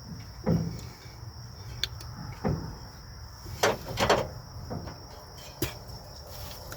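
Irregular clunks and scrapes as the IH 3588's engine is turned over by hand through a revolution to bring number one cylinder back to 15 degrees for pump timing, over a steady high-pitched insect-like trill.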